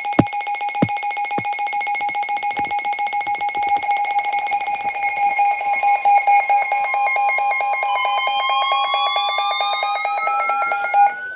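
Several Midland weather alert radios sounding their tornado-warning alarms together: a steady tone, joined by rapid beeping and, from about eight seconds in, a rising siren-like sweep. A few thumps in the first second and a half, and the alarms stop just before the end.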